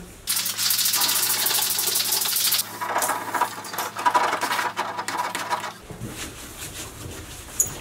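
A plastic razor blade scraping softened adhesive residue off a car door's painted panel. It makes a loud, rapid rasping chatter for about two and a half seconds, then quieter, uneven scraping strokes that stop about six seconds in.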